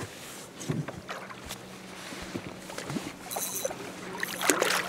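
A hooked zander splashing at the surface beside a boat about four seconds in, over water lapping at the hull, small knocks and a steady low hum.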